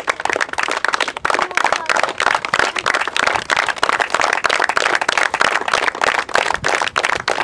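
A small group of people applauding, many hands clapping steadily and densely.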